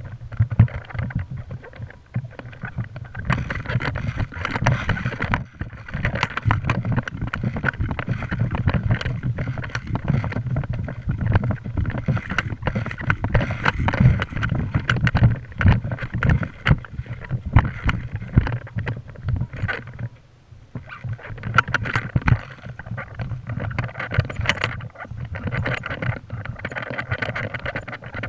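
Handling noise on a body-mounted GoPro: dense, irregular knocking, rubbing and rattling over a low rumble as the camera is jostled by its wearer's movement, easing briefly about two thirds of the way in.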